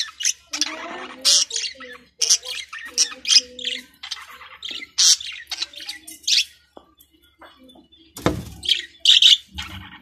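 Budgerigar chattering and warbling in a run of short, sharp high chirps and squawks. A low thump about eight seconds in.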